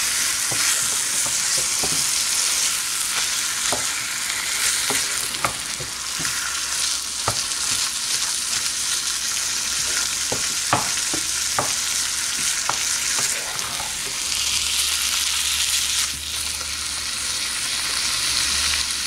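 Minced chicken frying in oil in a pan with a steady sizzle, while a wooden spatula stirs it, knocking and scraping against the pan now and then.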